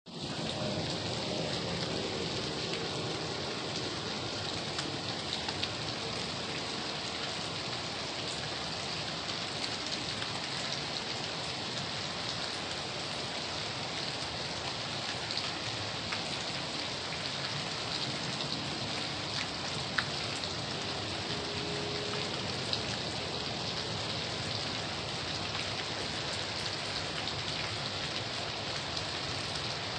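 Steady rain falling, an even hiss with scattered louder drop ticks. A faint low tone sounds under it in the first few seconds and again briefly a little after the twenty-second mark.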